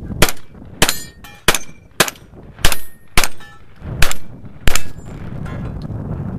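Eight gunshots in quick succession, about half a second to a second apart, with a faint metallic ring after several of them from steel targets being hit and knocked down.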